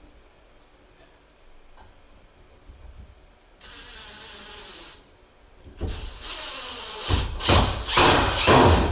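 Power drill driving 3-inch coated deck screws into a 2x4, run in several short, loud bursts in the second half, after a brief hiss about four seconds in.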